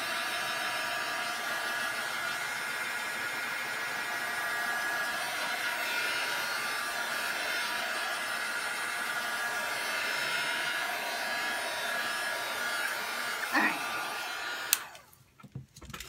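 Handheld hair dryer blowing steadily on a journal page to dry wet paint, with a faint motor whine in the rush of air. It switches off with a click about a second before the end.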